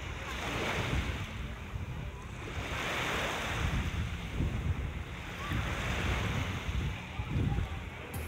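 Surf washing onto the beach in slow swells every two to three seconds, with gusty wind buffeting the microphone.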